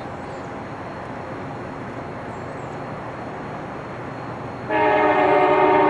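A steady rumble, then near the end a loud train horn sounds, a multi-note chord held steady.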